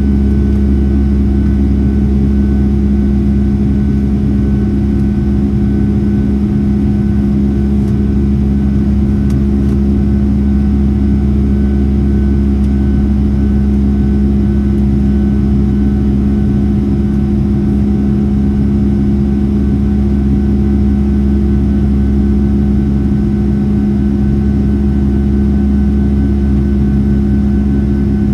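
Steady engine drone of a Boeing 757-300 with Rolls-Royce RB211 engines, heard from inside the passenger cabin: a loud, unchanging hum with a faint higher whine over it.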